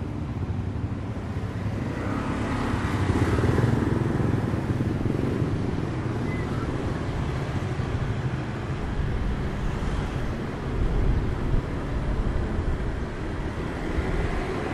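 Motor scooter running steadily at riding speed, with tyre and wind noise; the sound swells briefly about three seconds in.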